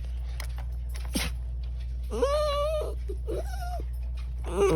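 Chihuahua making drawn-out whining, yowling vocalizations. There is a long held cry about two seconds in, a shorter higher one just after it, and a wavering cry near the end, over a steady low hum.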